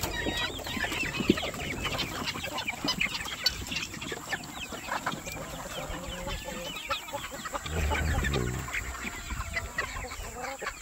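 A large flock of hens and roosters clucking and calling over one another, with a brief low rumble about eight seconds in.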